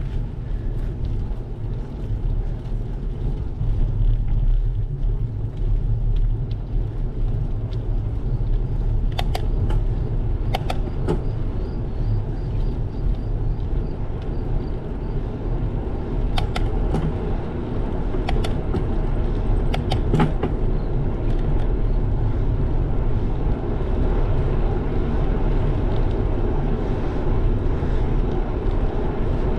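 Bicycle rolling along an asphalt road: a steady low rumble of wind on the camera microphone and tyre noise, with a few sharp clicks or rattles in the middle stretch.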